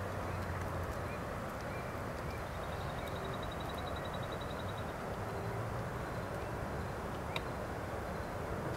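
Steady outdoor background noise with faint bird chirps. A quick high trill of ticks comes about a third of the way in, and a single sharp click follows near the end.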